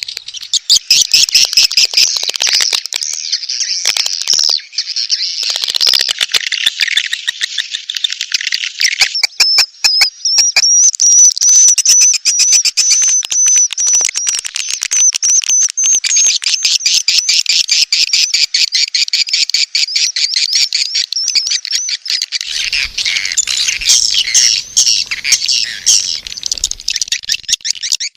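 Swiftlet lure call: a recorded swiftlet mating ('birahi') call of dense, rapid chirps and clicking twitters, with a high thin trill in the middle, played to attract swiftlets to a nesting house.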